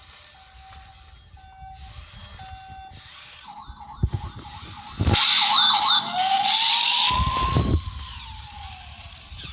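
Battery-powered electronic toy playing sound effects: a repeating pattern of short electronic beeps, then about five seconds in a loud burst of siren-like warbling with a rising and falling tone, lasting about three seconds.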